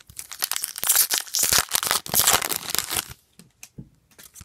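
A trading-card pack's wrapper crinkling and tearing for about three seconds as a new pack is opened, then a few light clicks of cards being handled.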